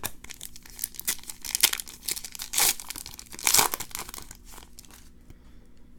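Foil trading-card pack wrapper crinkling and tearing as it is handled and opened, in irregular crackles that are loudest in the first four seconds and fade toward the end.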